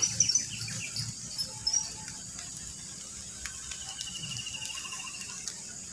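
Insects droning steadily at a high pitch, with a run of quick chirps in the first two seconds and a fast trill about four seconds in that fades out a second and a half later; a few light clicks and knocks sound in the first couple of seconds.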